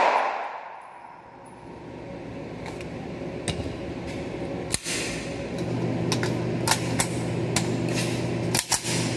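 The echo of a pistol string fading in an indoor range, then scattered faint sharp clicks and cracks, with a steady low hum coming in about halfway.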